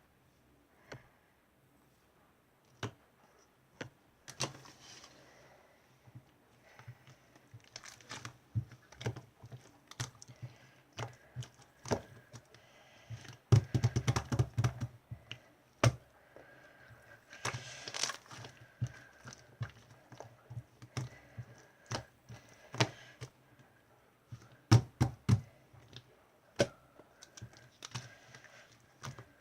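Irregular light taps, clicks and knocks, with a quick run of rapid taps about fourteen seconds in and smaller clusters of taps later on.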